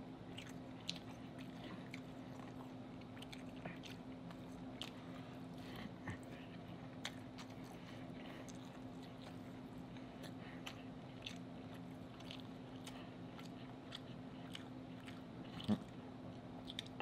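A person chewing king crab meat close to the microphone: soft wet mouth clicks and smacks, scattered irregularly, with one louder smack near the end. A faint steady hum runs underneath.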